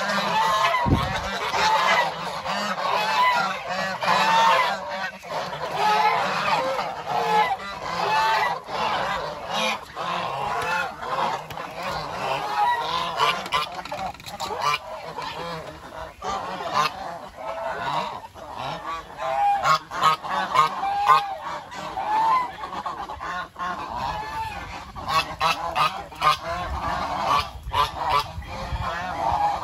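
A flock of domestic brown Chinese geese honking continuously, many short calls overlapping one another.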